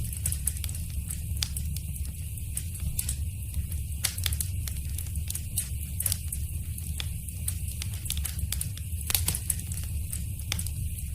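Wood fire crackling in a fireplace: frequent irregular sharp pops and snaps over a steady low rumble of the flames.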